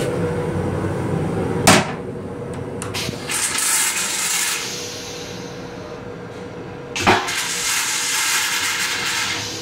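Metro-North M7 railcar lavatory toilet: a sharp clunk about a second and a half in as the seat is raised, then a flush with a hissing rush of water, a loud clunk about seven seconds in and a rushing whoosh that empties the stainless-steel bowl. The train's steady running hum and rumble lie underneath.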